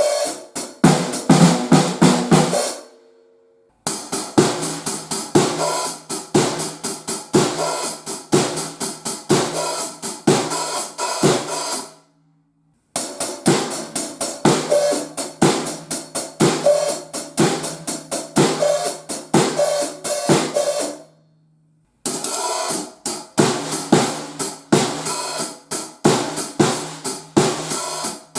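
Drum kit played in steady grooves with hi-hat, snare and bass drum, in short takes separated by brief silences; the drums are fitted with Evans Hydraulic oil-filled heads. The last take, after a gap near the end, uses Remo Black X heads for comparison.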